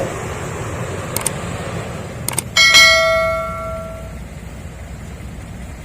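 Heavy diesel machinery running steadily, with a couple of light metal clicks and then one loud metallic clang about two and a half seconds in that rings on and fades over a second or so, like steel struck on steel.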